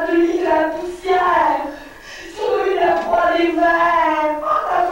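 A woman's voice in long, drawn-out wailing cries without words, the pitch sliding up and down, with short breaks between the cries.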